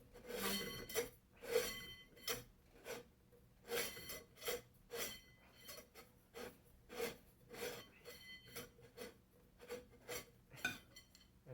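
Bottom dome of a ceiling fan being twisted off its threads by hand. The threads bind and scrape rough, a rasping rub with each turn in repeated strokes of about two a second.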